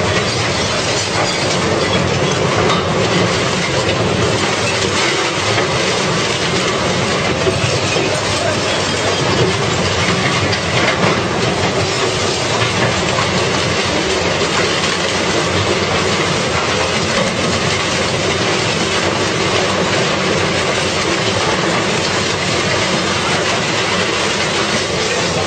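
Heavy car-destroying machine running steadily, with continuous metal clattering and grinding as a car is broken up.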